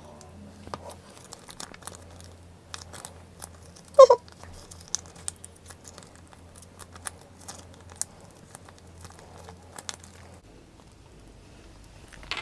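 Plastic sauce sachet crinkling in the fingers as thick black bean sauce is squeezed out of it, in light scattered crackles. A brief voice sound about four seconds in is the loudest thing, over a faint low hum that stops near the end.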